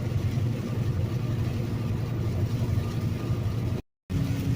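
Semi-truck diesel engine running steadily as the truck drives, heard from inside the cab as a low drone with road noise. The sound drops out briefly near the end.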